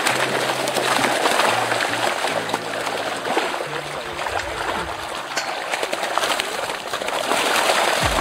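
Water splashing and churning steadily, with low bass notes of background music underneath.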